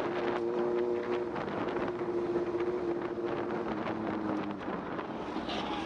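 A vehicle's engine running at a steady pitch over road and wind noise, the engine note fading a little after four seconds.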